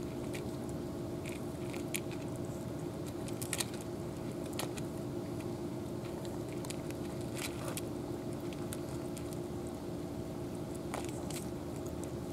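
Two cats eating dry kibble and wet food from plastic dishes: irregular crunching and chewing clicks over a steady low hum.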